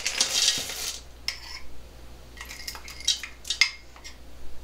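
Spoon scraping chocolate and butter out of small bowls into a saucepan: about a second of scraping at first, then scattered light clinks and taps of the spoon against the bowl and pan.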